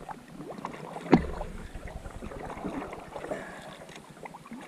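Solo canoe being paddled: paddle strokes in the water with small splashes and drips, and one sharp knock about a second in.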